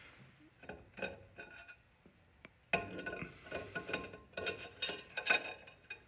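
Glass clinking as a broken glass bottle packed with crumpled aluminium foil is handled on a microwave's glass turntable among loose glass shards. A few light clinks about a second in, then a busier run of sharp clinks from about three seconds in.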